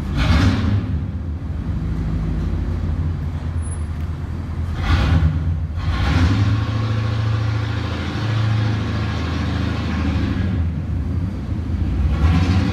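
A vehicle engine running with a steady low drone. Three short hissing rushes come through it: one at the start, one about five seconds in, and one near the end.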